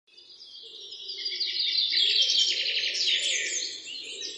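Many small birds chirping over one another in a dense chorus that grows louder over the first two seconds.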